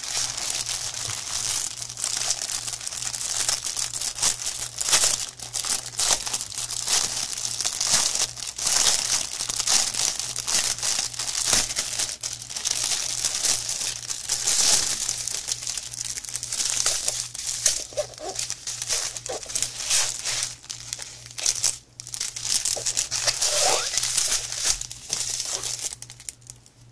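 Loud crinkling of plastic packaging: a bundle of small zip bags of resin diamond-painting drills is pulled from its clear plastic sleeve and handled, a dense crackling rustle with brief pauses.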